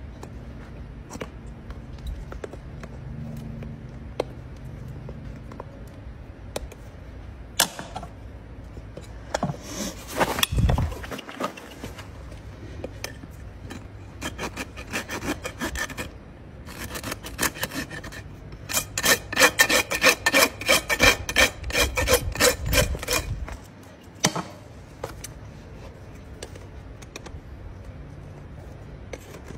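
Hoof rasp filing a horse's hoof wall in short runs of back-and-forth strokes. The loudest, fastest run comes past the middle at about four strokes a second, with quieter, scattered scrapes around it.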